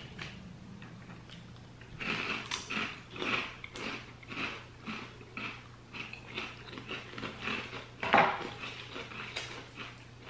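Chewing of crunchy barbecue pork rinds: a run of short, crisp crunches, a few a second, with one louder sound about eight seconds in.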